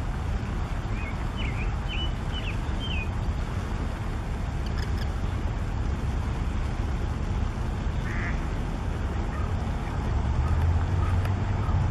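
Mallard ducks giving short, scattered quacks and calls over a steady low rumble that grows louder near the end.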